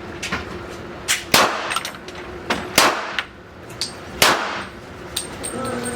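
Several pistol shots at a shooting range, sharp reports at irregular intervals, each followed by a ringing echo. The loudest come about a second and a half apart, with fainter shots from other lanes between them.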